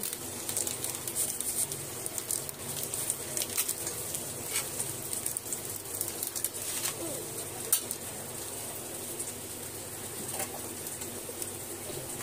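A bird cooing low and steadily, with a few sharp clicks of a knife cutting papaya on a plate.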